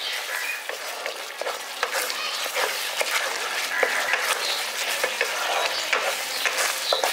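A spatula stirs and scrapes a thick milk-powder and ghee barfi mixture around a nonstick kadai, making a run of irregular soft scrapes and clicks over a steady sizzle as the mixture cooks down and thickens.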